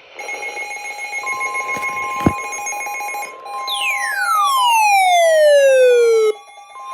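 Several weather alert radios alarming at once: overlapping electronic beeps and steady alert tones, with a single sharp thump about two seconds in. Then a loud tone sweeps down from high to low for a couple of seconds and cuts off abruptly.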